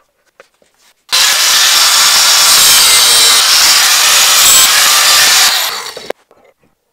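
Handheld angle grinder running against a steel bracket clamped in a vise. It starts about a second in, runs steadily for about five seconds, then winds down and stops near the end.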